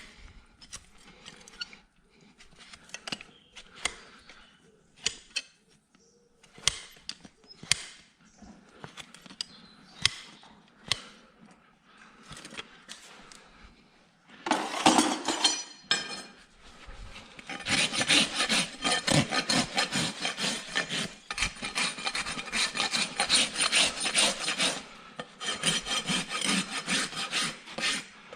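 Horse hoof being worked by a farrier. At first come scattered short scrapes and clicks; from about halfway on, a hoof rasp files the hoof in rapid, continuous back-and-forth strokes.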